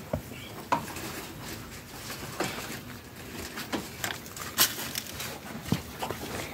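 Quiet outdoor background broken by several short, sharp clicks and knocks, the loudest about two-thirds of the way through.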